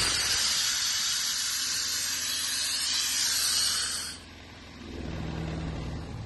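Compressed air hissing out of a Kaeser M13 portable compressor, cutting off suddenly about four seconds in. About a second later its Honda engine is heard running steadily at idle.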